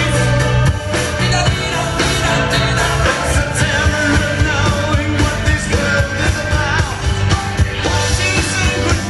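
Recorded rock song with a lead vocal over a full band, playing continuously.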